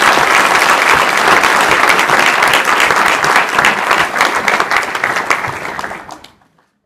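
Audience applauding, a dense steady clapping that tapers off and stops about six seconds in.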